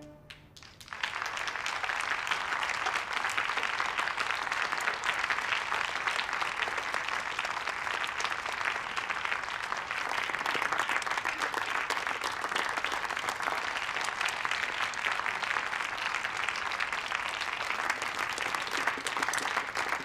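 Audience applauding, a dense steady clapping that starts about a second in, just as an orchestra's final chord dies away.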